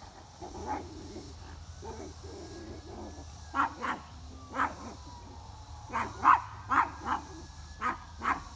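Small black dog barking at a squirrel up on a power line: after a few seconds of quieter sounds, a run of about eight short, sharp barks, some coming in quick pairs.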